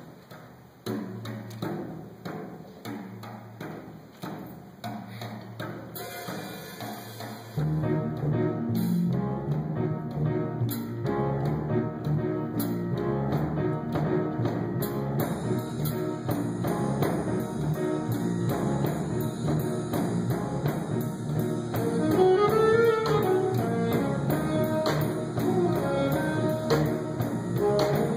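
Live jazz combo with drum kit and brass starting a tune: a sparse, steady beat at first, then the full band with bass comes in about seven and a half seconds in and plays on.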